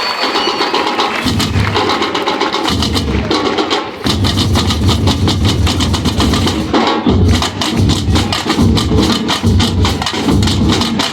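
Batucada drum ensemble playing a fast carnival rhythm: a steady stream of quick, sharp drum strokes, with deep bass-drum beats coming in about a second in and pausing briefly near the middle.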